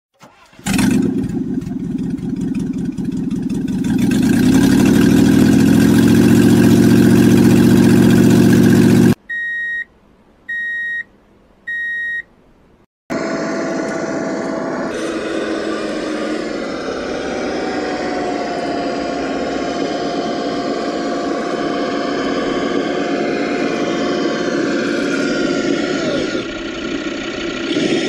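A large engine starting and revving up, then three short electronic beeps, then the steady whine of a radio-controlled truck's small electric drive motor and gears, its pitch shifting slightly.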